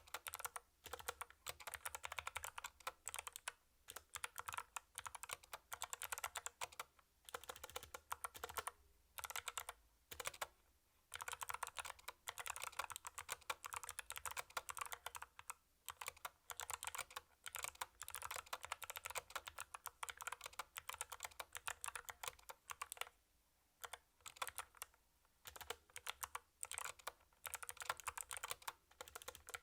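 Mechanical keyboard with Kailh Box White clicky switches being typed on at a steady pace: rapid runs of crisp keystroke clicks broken by brief pauses between words and phrases.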